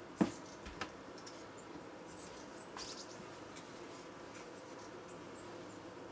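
Faint, steady hum of honeybees on the frames of an open hive. Two sharp clicks come near the start, and a softer rustle about three seconds in.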